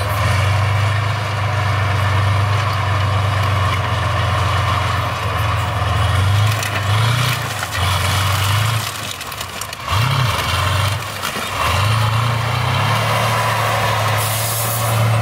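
T-55 tank's V12 diesel engine running hard as the tank drives, with the rattle of its tracks; the engine note drops and picks up again several times as the throttle is worked. A few crunches come about halfway through as it climbs onto a car.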